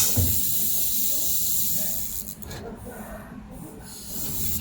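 Steady hiss of a handheld laser welder's torch during a weld pass, cutting off about two seconds in, followed by a few brief, quieter hisses.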